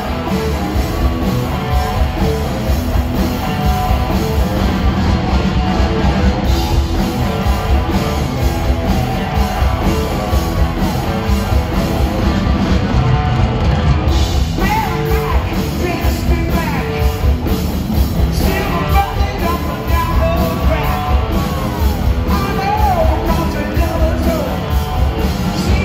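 Hard-rock band playing live: loud electric guitar through Marshall amps, drums and bass, with a male lead singer's vocals, heard from within the audience.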